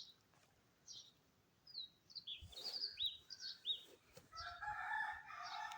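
Faint background birdsong: a few short chirps, then a rooster crowing with one long call starting about four seconds in.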